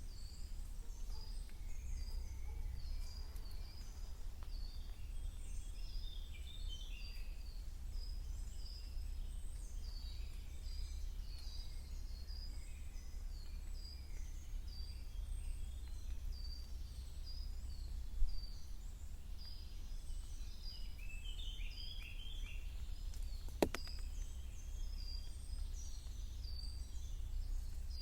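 Several songbirds singing and calling at once, a dense run of short high chirps and whistles, over a steady low wind rumble. A single sharp click sounds about three-quarters of the way in.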